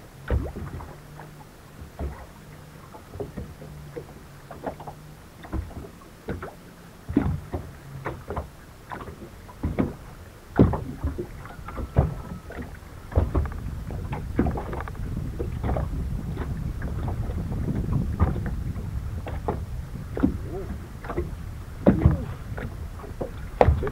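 Small waves slapping irregularly against the hull of a bass boat, many short splashy knocks. A faint low hum sounds in the first few seconds, and a steadier low noise rises through the middle.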